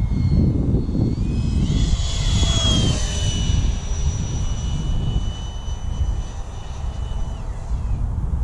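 A model jet's 64 mm electric ducted fan whines high overhead. Its pitch rises about a second in, holds steady for several seconds, then fades away near the end. Wind buffets the microphone throughout with a gusty rumble.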